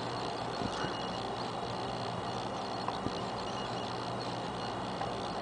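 A month-old infant hiccupping: short faint hics every couple of seconds, the last one sharper and much louder, over a steady background hiss.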